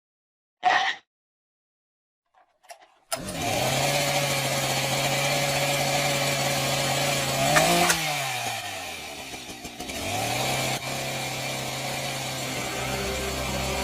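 An engine starts running steadily about three seconds in. Its pitch jumps up and falls away a little past the middle, then climbs back to a steady run. Before it, a short sharp sound comes about a second in.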